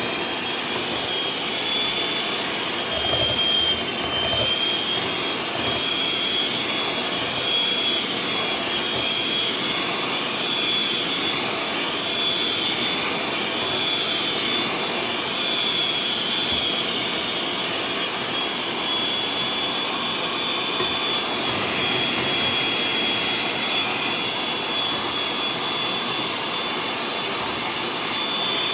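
Electric hand mixer running, its beaters churning cake batter in a glass bowl, a steady motor whine that wavers slightly in pitch over a whirring noise.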